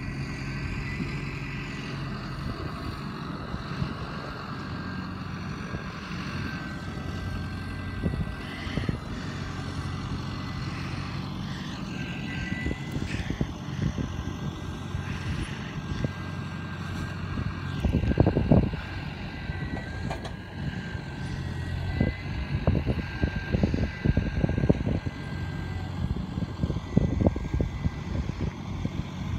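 Diesel farm tractor engines running steadily while a front-loader tractor works, with a thin steady high whine over the engine hum. A run of heavy knocks and thumps comes in the second half, the loudest a little past the middle.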